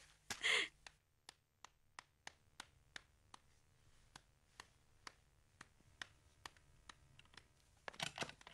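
A brief louder sound about half a second in, then light, evenly spaced clicks, about three a second, which stop near the end.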